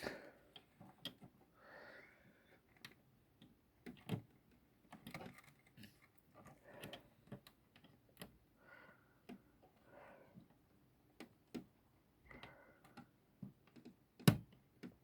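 Irregular small clicks and taps of plastic and metal parts being handled inside an original Xbox as a part is worked into place, with one louder knock near the end.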